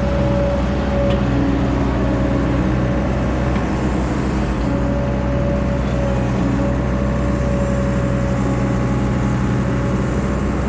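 Diesel engine of heavy earthmoving equipment running steadily under load, with a thin steady whine above the engine note.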